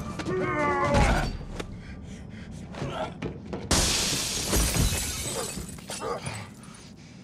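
Fight sound effects: a song with a singing voice cuts off about a second in, then come scattered thuds and grunts. About four seconds in there is a loud crash of shattering glass as bodies smash through a glass door, and the crash dies away over about a second.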